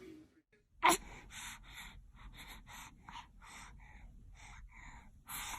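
A baby's sharp gasp about a second in, then quick, short breaths about three a second, with a louder one near the end: the catching breaths that build up to a sneeze.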